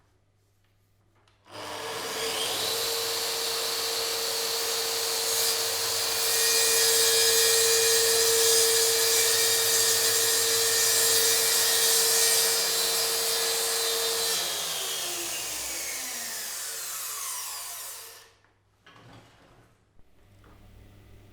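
Electric woodworking power tool working wood: its motor starts abruptly with a steady high whine and grinding noise, grows louder for a while as it works the material, then is switched off and winds down with a falling pitch over a few seconds.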